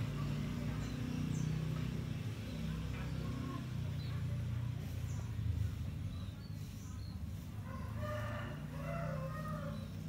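A rooster crows once near the end, over a steady low hum and a few faint high bird chirps.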